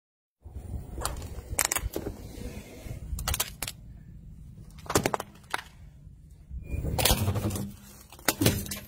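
A car tyre rolling slowly over objects on pavement and crushing them: a low tyre rumble with a string of sharp cracks and crunches, the loudest about five seconds in. The sound starts about half a second in.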